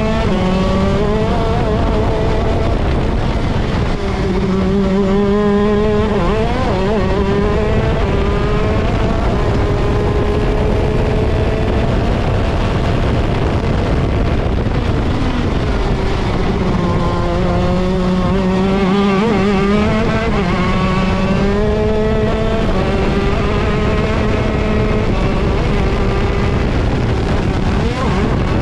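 Vortex ROK Shifter kart's 125cc two-stroke engine running hard at racing speed, heard from on board. Its note climbs and drops over and over as the driver shifts gears and brakes for corners.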